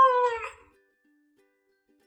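A cat meowing: the end of one long meow, falling in pitch and stopping about half a second in.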